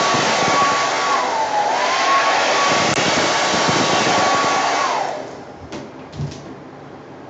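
Hair dryer blowing with a steady whine that dips briefly in pitch. It is switched off about five seconds in, the whine falling as the motor winds down, and a few faint clicks follow.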